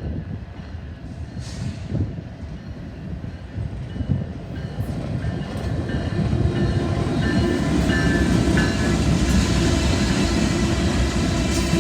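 Train passing with a low rumble that builds and grows louder about halfway through, with a few faint steady high tones over it.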